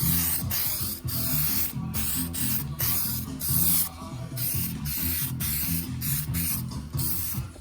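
Primer being sprayed onto a car body in short passes: a hiss that starts and stops about a dozen times, with brief pauses between. Background music plays underneath.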